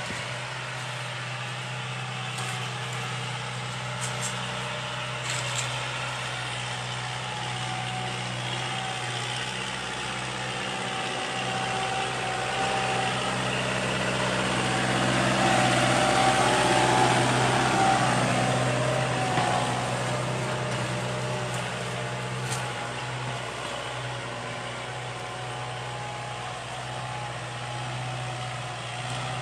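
Kubota tractor's diesel engine running steadily under load while it pulls a cultivator through dry soil. It grows louder as the tractor passes close, at about the middle, then fades as it moves away.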